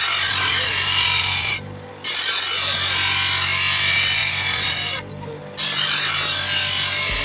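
Steel sickle blade, cut from a chainsaw bar, being ground on a power grinder in three long passes, with the motor humming steadily in the short breaks between them.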